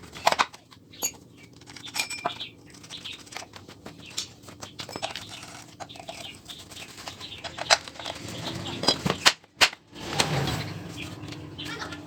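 Irregular light clicks and taps of hand tools and small chainsaw parts being handled and worked.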